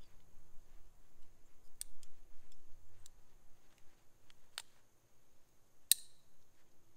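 Metal climbing hardware, a Ropeman rope ascender, clicking a handful of times as it is handled and set on the climbing rope, the sharpest click about six seconds in.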